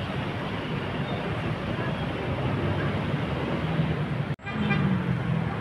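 Street traffic noise and the engine of an intercity bus pulling away among motorcycles. About four seconds in, the sound cuts out abruptly and comes back with a nearer bus engine running, a steady low hum.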